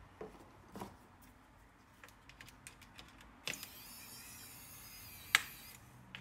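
Light clicks and taps of gloved hands handling the opened plastic chassis and parts of an HP EliteBook 8470p laptop. About halfway through a steady high-pitched sound begins, with one sharp loud click near the end.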